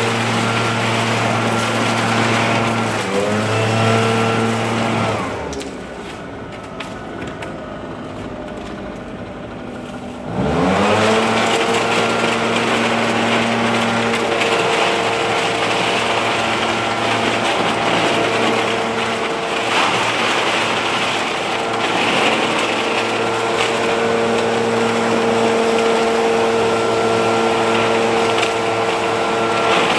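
Two-stroke leaf blower running at high throttle. It drops to idle about five seconds in, then revs back up about ten seconds in and runs on steadily at high speed.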